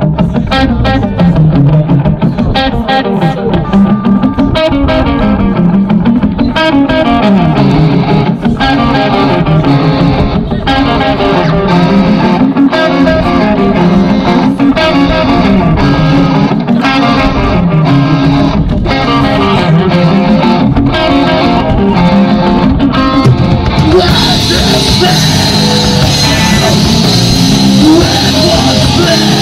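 Live hardcore band playing the opening of a song: distorted electric guitars and bass guitar on a heavy riff with drums. About 24 seconds in the sound fills out and brightens as the full band comes in harder.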